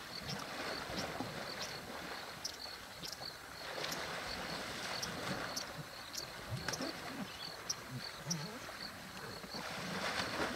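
Water sloshing and splashing as African elephant bulls wrestle and wallow in a waterhole. Short, high chirps repeat every fraction of a second throughout.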